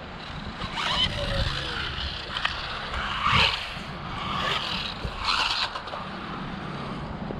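Electric motor of a 1/12-scale RC buggy whining up and down in pitch as it accelerates and slows, over tyre scrape and hiss on wet ground; the loudest burst comes about three seconds in.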